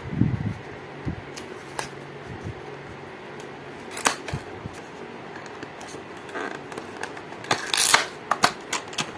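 Small cardboard retail box for a USB cable being opened by hand: scattered clicks and taps of the packaging, a low thump at the start, and a louder scraping rustle about eight seconds in.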